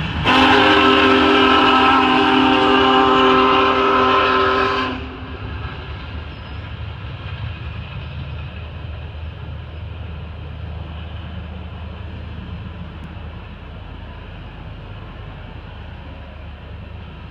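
Big Boy 4014 steam locomotive's whistle sounding one long, loud blast of about five seconds, then cutting off. After it comes the steady rumble of passenger cars rolling past at speed, slowly fading.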